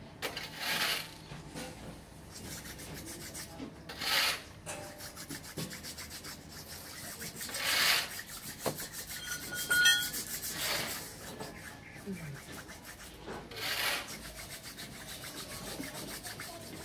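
Rubbing strokes from hand work on a hydraulic excavator boom cylinder, five in all, about three seconds apart.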